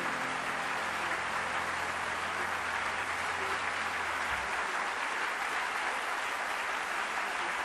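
Theatre audience applauding steadily as a live blues song ends.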